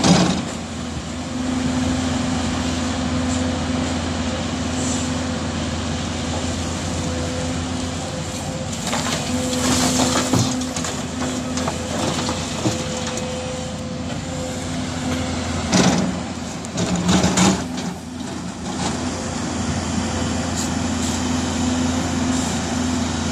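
Case CX220C crawler excavator's diesel engine running steadily as it digs and loads soil, with a few brief louder bursts of noise while it works.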